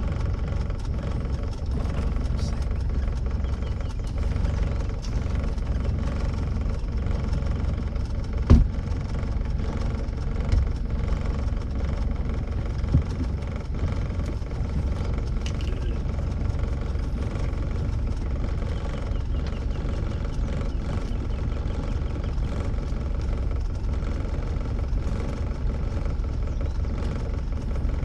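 A boat's gasoline engine running steadily under way, with one sharp thump about eight and a half seconds in and a couple of lighter knocks after it.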